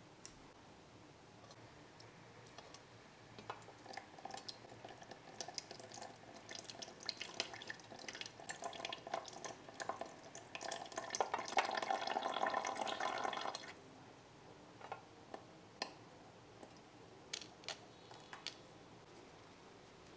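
Water from a miniature kitchen faucet running in a thin stream over blueberries in a small plastic scoop and spattering into a stainless steel sink. The flow gets heavier, then shuts off sharply about 14 seconds in. A few light clicks follow.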